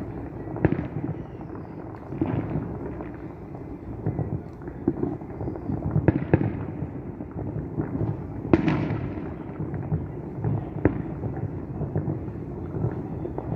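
Fireworks going off at a distance: a steady rumble of overlapping explosions with sharper bangs scattered through it, the loudest about two-thirds of the way in.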